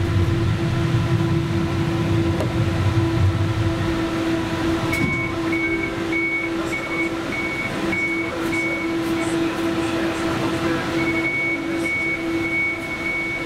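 A 71-911EM 'Lvyonok' tram, heard from the driver's cab, rolling to a stop: the low wheel-and-motor rumble dies away over the first few seconds, leaving a steady electrical hum. From about five seconds in, a high electronic beep repeats about two and a half times a second, then holds as one steady tone near the end.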